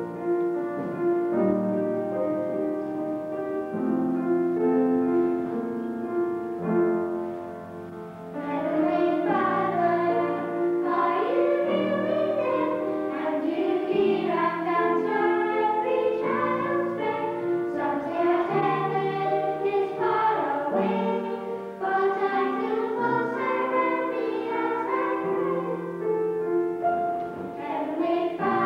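An upright piano plays an introduction, and about eight seconds in a small group of children starts singing a song together, with the piano accompanying them.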